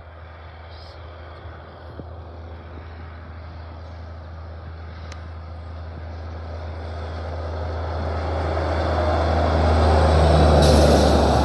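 Semi-truck pulling a flatbed trailer approaching along the highway, its engine and tyre noise growing steadily louder and peaking as it reaches close by near the end.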